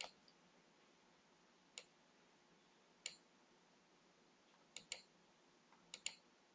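Faint computer mouse clicks in near silence: single clicks about every second or two, then two quick double-clicks near the end.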